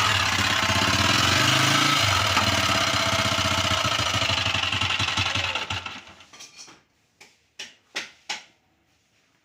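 Motorcycle engine idling with the engine noise it is being checked for, then shut off about six seconds in; a few short clicks follow.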